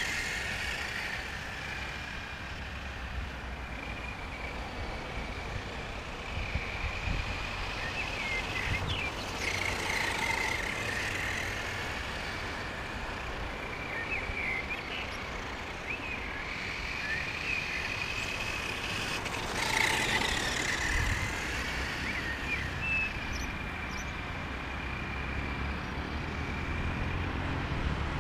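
Brushed electric motor and drivetrain of a Helion Dominus 1/10 short-course RC truck whining as it drives, the pitch wavering with throttle and loudest about twenty seconds in. Wind rumbles on the microphone underneath.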